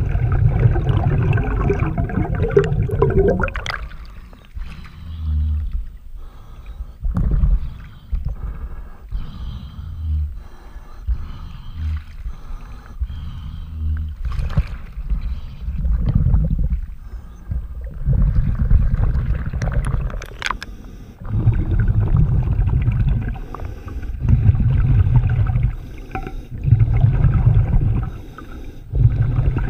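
Scuba diver's regulator breathing underwater: deep bubbling rumbles of exhaled air in bursts about every two and a half seconds, loudest in the second half, with a few scattered knocks in a quieter stretch in the middle.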